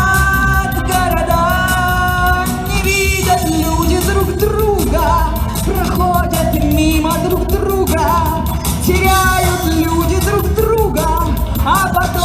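A woman singing a Soviet-era pop song over a full instrumental backing track with a steady beat, holding and gliding between long sung notes.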